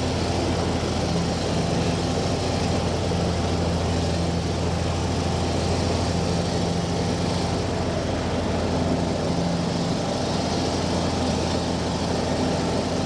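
John Deere riding lawn mower's engine running steadily while mowing, an even hum.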